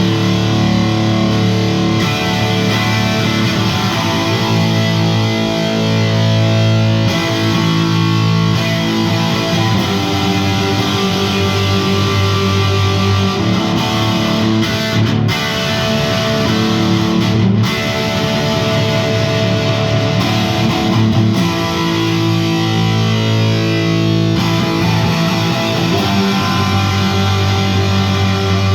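Electric guitar played through a 1989 Marshall JCM800 2210 100-watt valve amplifier head, with lightly overdriven chords and notes left to ring and changing every second or two. There are short breaks between phrases about halfway through.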